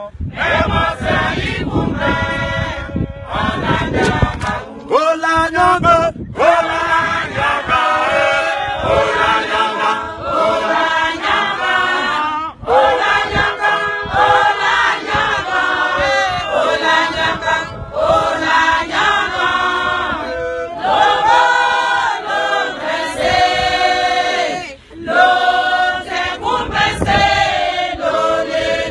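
A church choir singing together without pause. A low rumble sits under the voices for the first few seconds.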